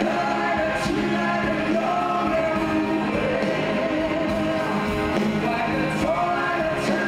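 Live rock ballad sung by a male vocal duo over acoustic and electric guitars, with long held notes.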